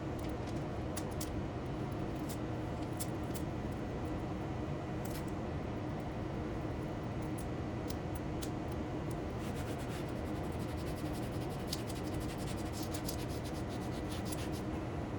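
Light scratching, rubbing and small ticks from hand work with sheet material, coming thicker and faster in the second half, over a steady hum of shop noise.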